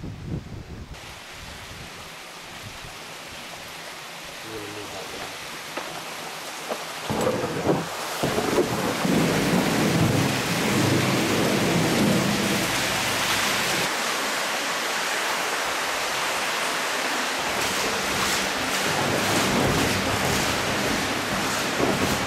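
Water rushing through a corrugated steel culvert, heard from a canoe inside the pipe, with the echo of the steel tube over it. It grows louder over the first several seconds and then stays loud.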